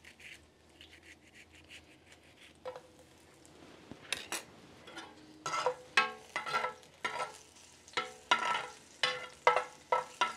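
Onion slices frying in hot oil in a clay cazuela, stirred and scraped with a spatula: faint at first, then quick, louder scraping strokes against the pot from about halfway on, with the oil sizzling.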